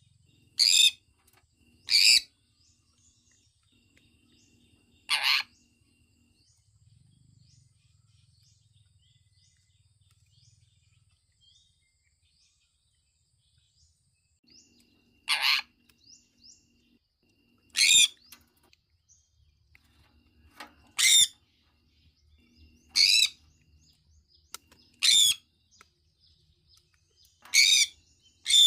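Sun conure giving about ten short, loud, shrill chirping calls at uneven intervals, with a long lull in the middle broken only by faint small chirps.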